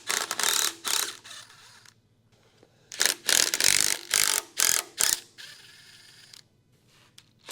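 Hand socket ratchet clicking in quick bursts as the water pump bolts are backed out: a burst in the first second, then a longer run of strokes from about three to five seconds in.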